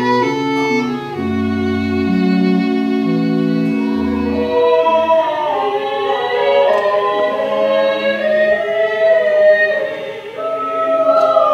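Live ceremony music: a violin over low held chords, with a singing voice carrying the melody with vibrato from about four seconds in, once the low chords drop away.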